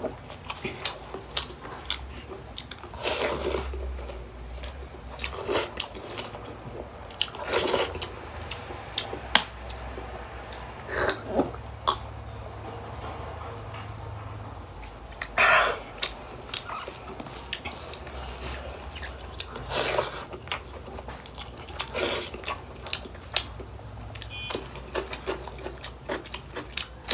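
Close-up mukbang eating sounds: a person chewing and biting food, with irregular short wet clicks and smacks.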